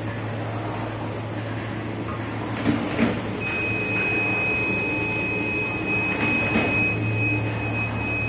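A 5-layer paper straw making machine running: a steady mechanical noise over a low hum, with a few sharp clicks. A thin, high, steady whine joins about three and a half seconds in.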